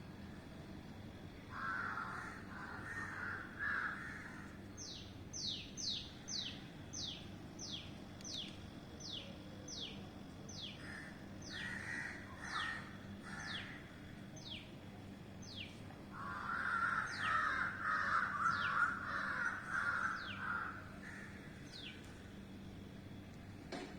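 Crows cawing in three harsh bouts, the longest near the end. Between and under them, another animal repeats short, high, falling notes, quickly at first and then more slowly.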